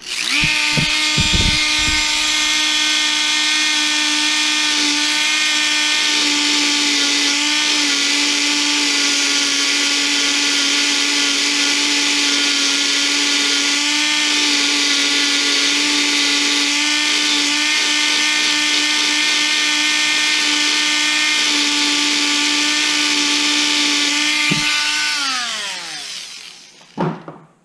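Dremel rotary tool with a right-angle attachment and cutoff wheel running at steady high speed, a loud whine that dips briefly in pitch a few times as the wheel grinds set-screw flats into a brushless motor's shaft. Near the end it is switched off and the whine falls in pitch as it spins down.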